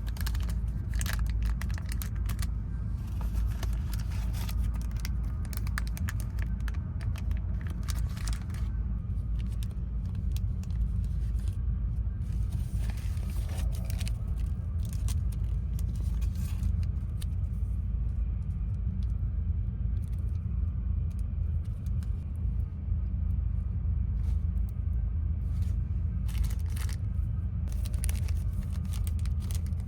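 Steady low rumble of a moving passenger train, with scattered light clicks and rattles.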